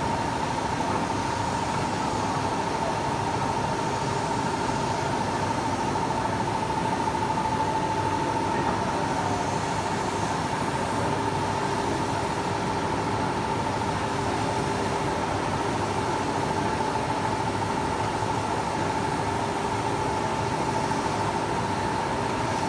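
ACME large-format inkjet banner printer with Konica 512i printheads running while it prints, its carriage shuttling back and forth across the banner: a steady mechanical hum with a constant mid-pitched tone and a faint high whine that comes and goes every couple of seconds.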